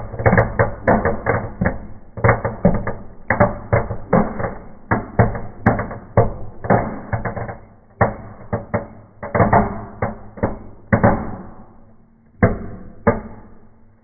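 Small firecrackers and fireworks set off in a fireplace, going off in a rapid, irregular string of bangs and crackles that thins out near the end to two last bangs before dying away.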